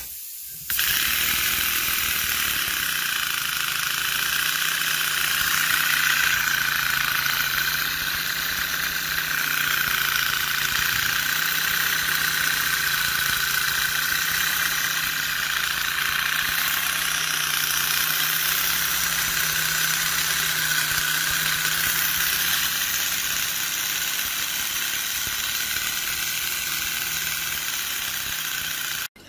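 Model Comber rotary steam engine running: a steady rushing hiss that starts abruptly under a second in, over a faint low hum that wavers slightly.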